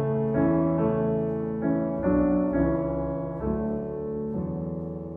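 Piano playing a slow instrumental passage of a ballad: held chords that change about every second, softening slightly near the end.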